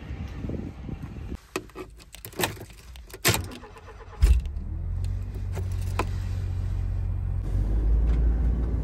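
Keys jingling and clicking at the ignition of a Honda kei van, then its engine starts about four seconds in and settles into a steady low idle.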